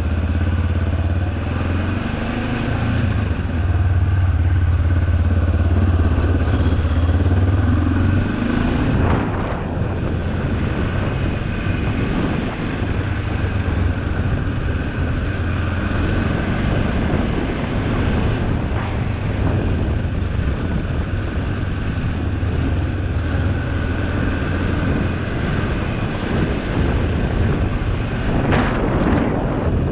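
Kawasaki KLE 400 parallel-twin motorcycle engine running steadily while riding; after about nine seconds the engine note becomes less prominent under more wind and riding noise.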